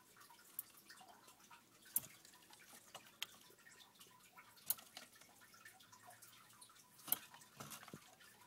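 Faint dripping water in a crayfish tank: about five sharp drips, a second or two apart.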